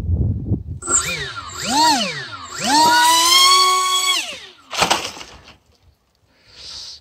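Electric motors and propellers of a homemade VTOL RC plane whining as the throttle works: the pitch rises and falls twice, then holds steady for about a second and a half and cuts off. A brief burst of noise follows shortly after.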